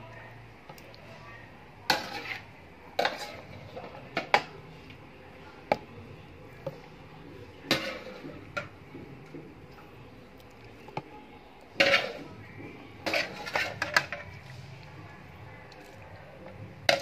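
Wire skimmer clinking and knocking against a metal wok while squid pieces are scooped out, a dozen or so sharp clinks at irregular intervals.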